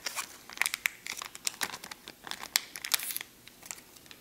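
Packaging of a laptop RAM memory module crinkling and crackling as it is cut and pulled open: a run of irregular sharp crackles and snaps that thins out near the end.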